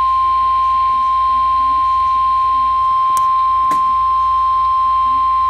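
NOAA Weather Radio's 1050 Hz warning alarm tone: one loud, steady, unbroken beep, the signal that a warning, here a severe thunderstorm warning, is about to be read. Two brief clicks come through about three seconds in.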